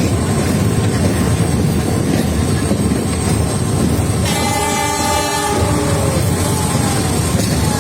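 Steady low rumble with a brief horn blast about four seconds in, lasting a little over a second.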